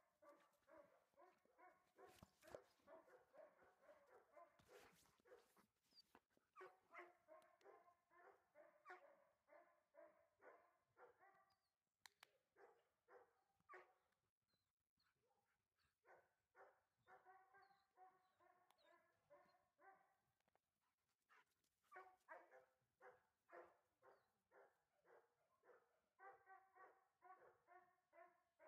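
Faint dog barking, fast and repeated at about three barks a second, in long runs of several seconds with a short break about halfway through.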